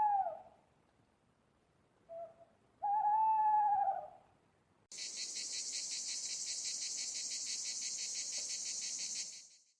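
An owl hooting: one hoot, a short note, then a long wavering hoot. It is followed by a high, rapidly pulsing insect trill that runs for about four seconds and stops shortly before the end.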